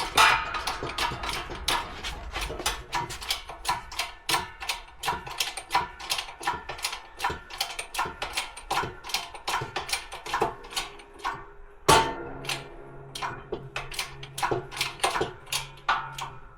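Steady run of sharp metallic clicks, about three a second, from a ratchet wrench turning the screw of a ball joint press to press a new wheel bearing into the hub knuckle. About twelve seconds in there is a louder knock, followed by a steady low hum.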